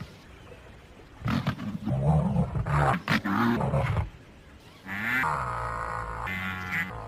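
Rhinoceros calling: about three seconds of deep, rough grunting, then, after a short pause, a long pitched moaning call that runs to the end.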